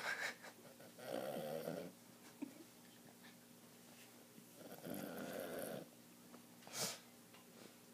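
A sleeping pet snoring: two slow, drawn-out snores of about a second each, some four seconds apart, with a short sharp breath near the end.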